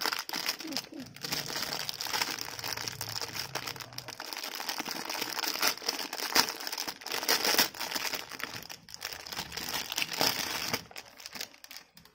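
Clear plastic wrapping crinkling as it is handled and peeled off a hairbrush, a dense run of crackles that dies down near the end.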